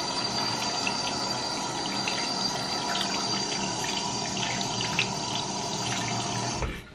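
Water running from a bathroom sink tap, with small splashes as soapy hands are rubbed and rinsed under the stream; the flow cuts off suddenly near the end.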